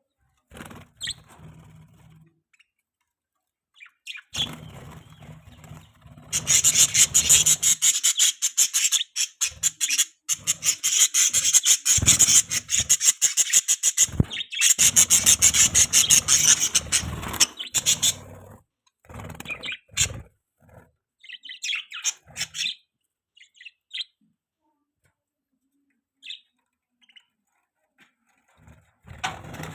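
Budgerigars chirping and chattering in a fast, scratchy run that is loudest from about six to eighteen seconds in. Scattered short chirps come before and after it.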